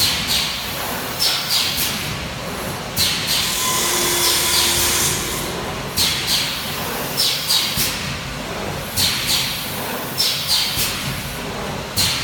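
BGS-240P plastic ampoule forming, filling and sealing machine running through its cycle: sharp clicks and short hisses repeating about once a second, with a longer steady hiss for about three seconds near the middle.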